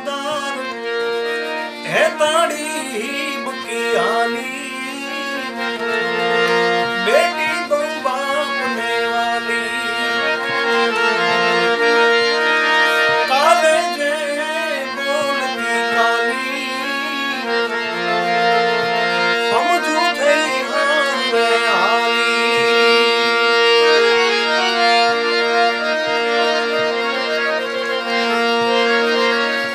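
Harmonium playing a Gujarati folk melody over held drone notes, an instrumental passage with no sung words.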